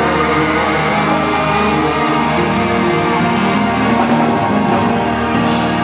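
Live band music playing loudly through the hall's speakers, with sustained chords that stop near the end.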